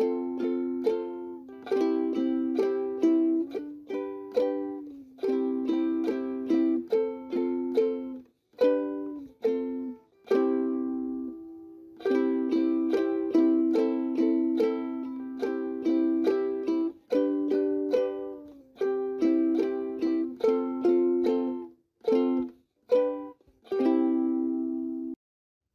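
Background music: rhythmic, sharply plucked string chords, with a few short breaks.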